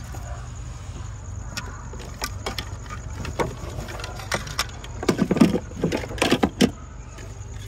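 Objects being handled and shifted about in a car: scattered clicks, knocks and rattles, thickest about five to six and a half seconds in, over a steady low rumble.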